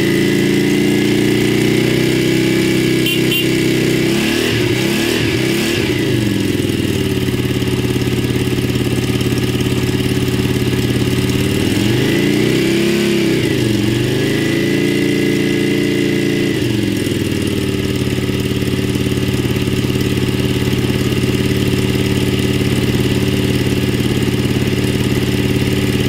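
Yamaha Drag Star V-twin engine idling steadily, with a few short throttle blips about four to six seconds in and a longer rise and fall in revs around thirteen seconds in, each settling back to idle.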